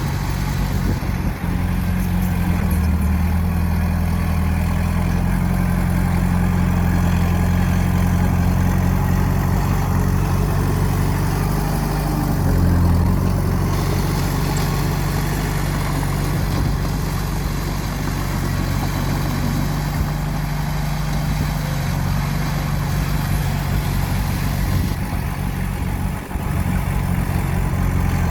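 Diesel engine of heavy earthmoving machinery running steadily, with a brief rise in revs about twelve seconds in.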